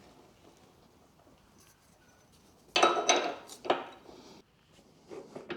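Metal parts clinking as a steel bushing is fitted into a hydraulic ram mount: quiet at first, then a sharp ringing clink about three seconds in, followed by a second clink and a few lighter taps.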